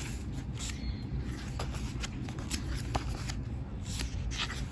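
Paper and card being handled: glossy photobook pages and cards from a DVD set rustling and flicking, with irregular short taps several times a second.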